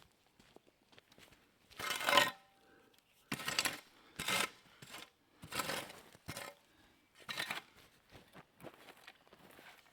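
Footsteps on the forest floor: six or so uneven steps through ground litter, the loudest about two seconds in.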